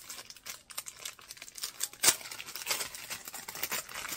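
Clear plastic packaging bag crinkling as it is handled and pulled open, with a sharper crackle about two seconds in.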